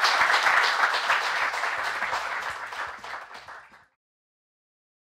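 Audience applauding, loud at first and dying away, then cut off to silence about four seconds in.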